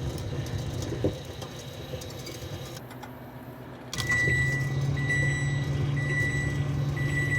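Microwave oven humming, then about four seconds in, four beeps about a second apart signal the end of its cooking cycle, over a steady hum.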